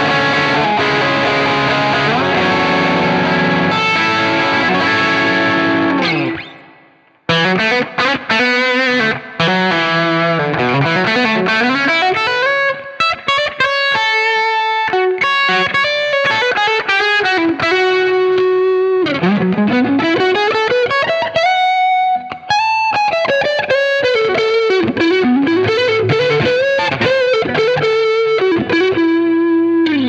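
Electric guitar (a b3guitars Phoenix) through an IK Multimedia TONEX model of a Marshall SV20H amp set for a crunchy overdrive. A held chord rings for about six seconds and dies away, then after a short pause a single-note lead line follows, with string bends and vibrato on held notes.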